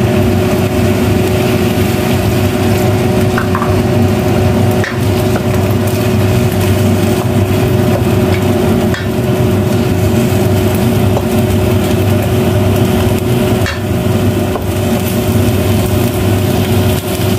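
Bok choy sizzling as it is stir-fried in a wok, a wooden spatula scraping through it and now and then knocking the pan. Under it runs a loud, steady hum with one constant tone.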